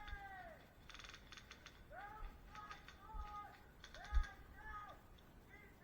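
Airsoft guns firing in three short bursts of rapid clicks, about a second, two and a half and four seconds in. Between the bursts come repeated short pitched cries.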